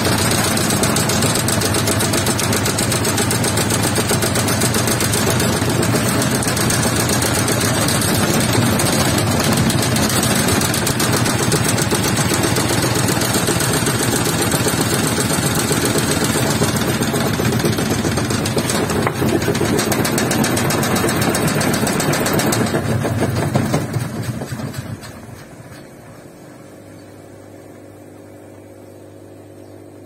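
Zanussi front-loading washing machine running with its door open, the drum turning and flinging water out with a loud, fast rattle. About 24 seconds in it winds down over a couple of seconds, leaving a steady low hum.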